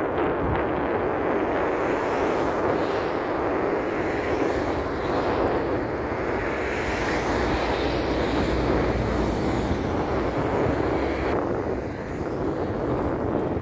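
Twin-engine jet airliner climbing away after takeoff, its engines heard as a steady, distant rumble of jet noise. The upper hiss falls away about eleven seconds in.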